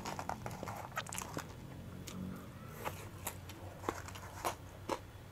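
A person chewing a mouthful of food with lips closed, close to a clip-on microphone, with scattered faint mouth clicks.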